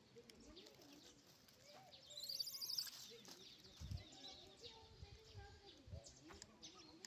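Faint outdoor sound: a bird's quick, high twittering trill about two seconds in, over faint wavering calls or distant voices.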